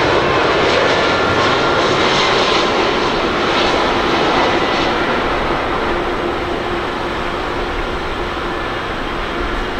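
Boeing 767-300ER airliner's jet engines on landing approach: a loud, steady rushing noise that eases off slightly after about five seconds as the jet flares just above the runway.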